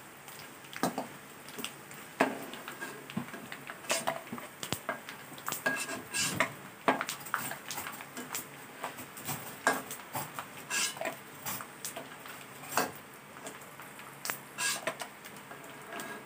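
Metal spatula clinking and scraping against a steel wok while stirring and lifting pork-skin chicharon in hot oil, in irregular clinks and knocks.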